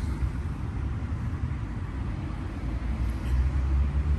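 Road traffic going round the roundabout: a steady low engine rumble of passing vehicles. It swells with a louder engine hum about three seconds in.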